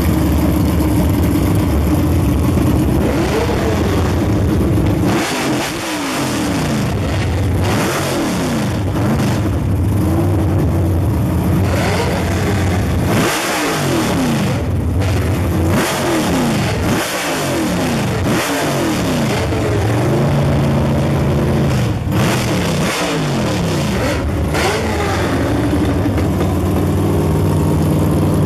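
Drag-race Chevrolet Camaro's V8 idling, then revved again and again from about five seconds in, each rev rising and falling back, with short spells of idle between; it settles back to a steady idle near the end.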